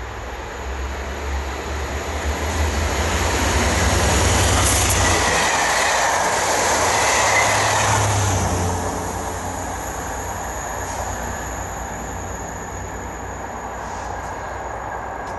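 A diesel freight locomotive in Colas Rail livery approaches and runs through at speed. Its low engine drone builds to loudest around the middle as it passes, with a thin high whine from the wheels, then the sound dies down to a steady rumble as it moves away.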